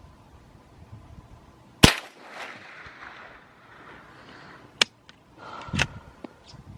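A single .22 LR rifle shot, sharp and loud, with its report echoing away over about two seconds. A few shorter sharp clicks follow.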